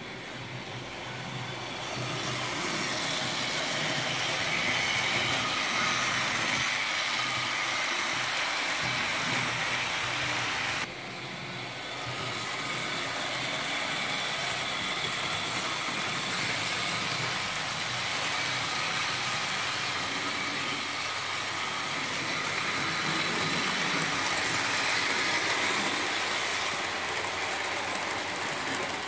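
Model train running on the layout: a steady whir of the model locomotive's motor and wheels on the rails, with a few brief clicks. The sound drops suddenly about eleven seconds in and then picks up again.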